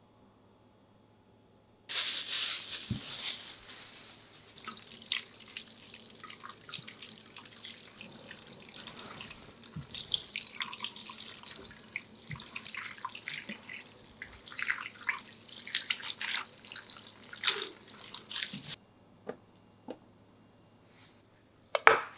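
Tap water running into a bowl of small stone fruit as they are rinsed, with splashing and the fruit knocking about. The water stops abruptly near the end. Shortly after comes one short, sharp knock.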